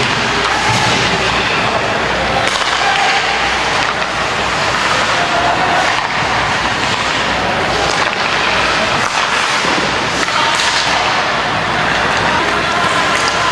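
Ice hockey game sound from rinkside: a steady noisy wash of skates scraping the ice, with a few sharp stick-and-puck clacks and some brief shouts.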